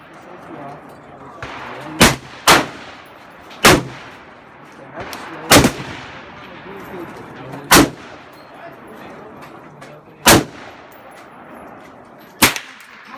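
Gunshots: seven sharp reports at irregular intervals, the first two close together about two seconds in, the rest spread out a couple of seconds apart.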